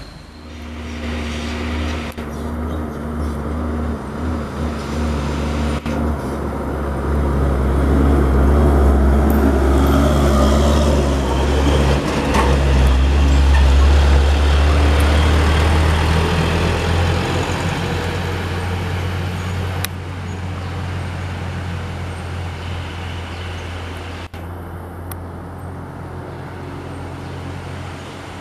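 Heavy diesel engine of a tandem-axle box truck running steadily under load. It grows louder as the truck passes, then slowly fades as it pulls away.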